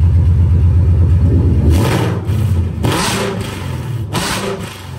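Ford Mustang's Coyote V8 revving through open race-dump exhaust cutouts: held at high revs, then let off about two seconds in, followed by three short sharp bursts as the revs fall away.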